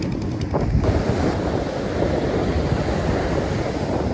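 Sea surf washing on a beach, with wind buffeting the microphone.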